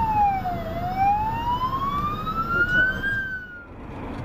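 Ambulance siren wailing over road noise: one slow sweep down in pitch, then back up. It cuts off a little past three seconds in, leaving quieter traffic noise.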